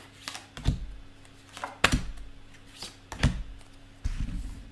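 A deck of tarot cards being shuffled and handled: three separate soft taps or thuds of cards knocking together, about one every second and a quarter, then a short rustle of shuffling near the end.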